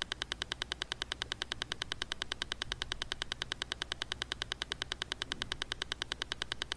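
A fast, perfectly even clicking pulse, about eight to ten clicks a second, over a faint low hum.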